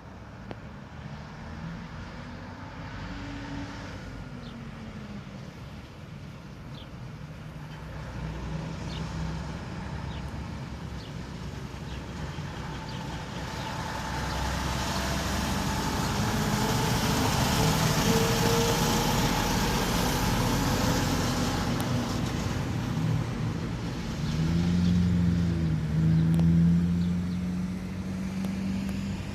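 A road vehicle drives past: engine and tyre noise swell to a peak about halfway through, then ease off, and an engine revs briefly up and down near the end. No siren is sounding.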